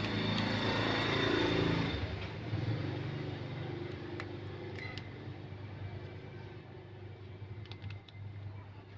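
A passing motor vehicle's engine, loudest in the first two seconds and then fading away, with a few light clicks later on.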